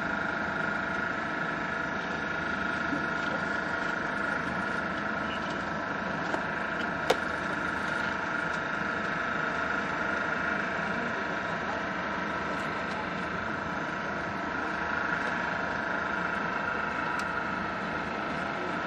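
Steady engine drone with several held tones throughout, typical of an idling diesel engine; a single sharp click about seven seconds in.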